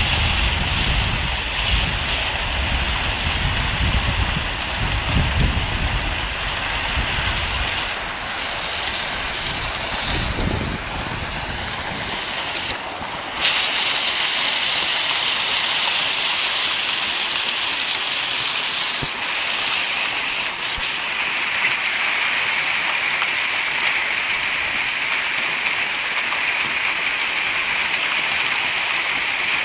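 Hail and heavy rain falling on corrugated roofing, a dense steady noise. Wind buffets the microphone with a low rumble for roughly the first twelve seconds, then eases.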